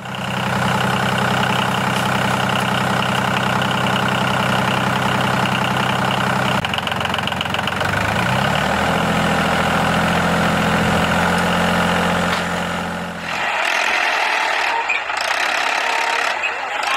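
Handmade miniature tractor running after being switched on: a steady, low, engine-like drone that shifts and glides in pitch about seven to nine seconds in, then gives way to a higher, rattling mechanical noise about thirteen seconds in.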